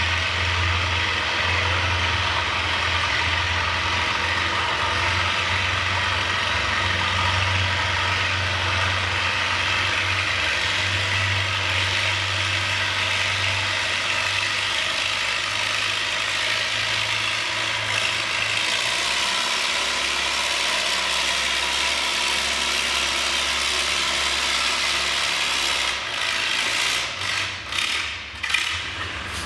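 Antique farm tractor engine running hard under load as it pulls a sled, a steady low drone. About two-thirds of the way through the engine note drops lower, and near the end the sound turns uneven with a few sharp clicks.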